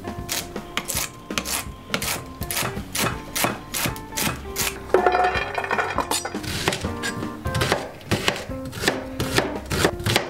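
Kitchen knife chopping vegetables on a plastic cutting board in quick strokes, about four a second. About five seconds in the chopping breaks for a short scraping clatter as chopped celery is slid off the board into a frying pan, then the knife goes on dicing an onion. Soft acoustic guitar music plays underneath.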